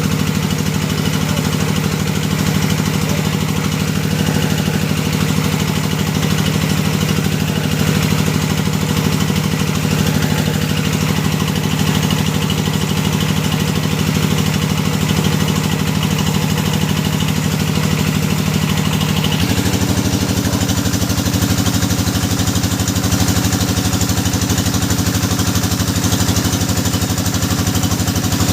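Engine of a hydraulic deep-well drilling rig running steadily. About twenty seconds in, its note changes abruptly and then holds steady again.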